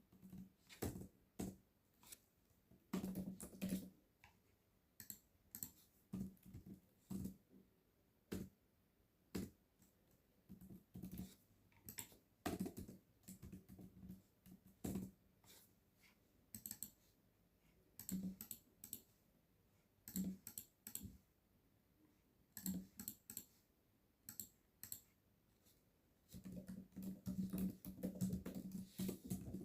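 Typing on a computer keyboard in short, irregular bursts of keystrokes with pauses between them, and a quicker, denser run of typing near the end, mixed with mouse clicks.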